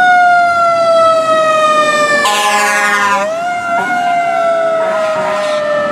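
Fire engine siren wailing, its pitch sliding slowly downward. About three seconds in it rises again and then falls once more, with a harsher change in the tone shortly before that.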